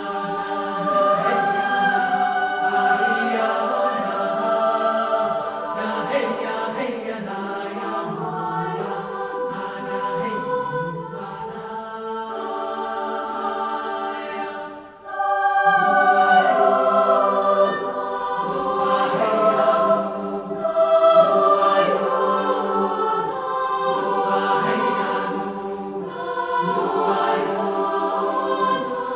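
Choral music: several voices singing sustained chords, breaking off briefly about halfway through and then resuming.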